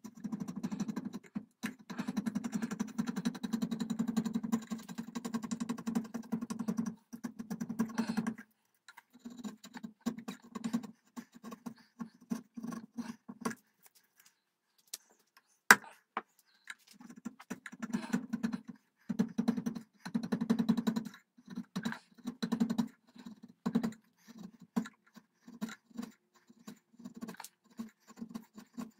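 A hand tool, a chisel or gouge, cutting along the barrel groove of a wooden rifle stock: a long continuous stretch at first, then short repeated strokes with pauses, and one sharp knock about halfway through.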